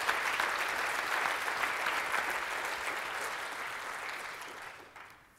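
Audience applauding, a dense patter of many hands clapping that tapers off and dies away near the end.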